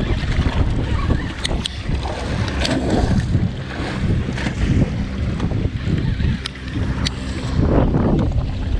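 Wind buffeting the microphone on a small fishing boat, with a steady low motor hum underneath and a few sharp clicks and knocks.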